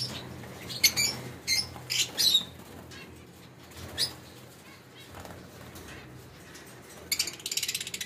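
Lovebirds giving sharp, shrill chirps: a few single calls in the first couple of seconds and one around four seconds in, then a fast chattering run of calls near the end.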